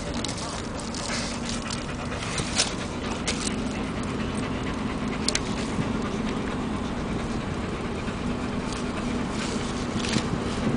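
German Shepherd panting inside a moving car's cabin, over a steady low drone from the car, with a few sharp clicks.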